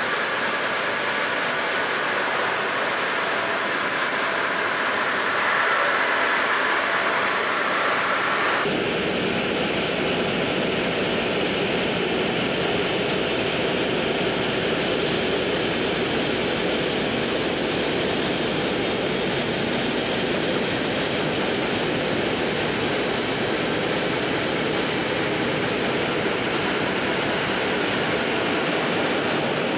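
Large water-cooled diamond circular saw blade cutting through a granite block: a steady rushing, grinding noise of the blade and its spraying coolant water. A high steady whine runs for the first nine seconds or so, then the sound changes abruptly to a fuller, lower rush.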